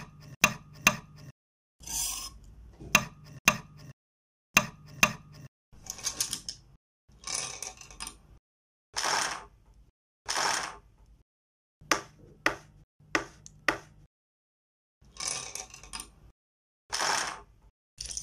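Kitchen sounds cut into separate short bursts with silence between them: sharp knife chops on a wooden cutting board and several clicks, alternating with about half a dozen short swishes.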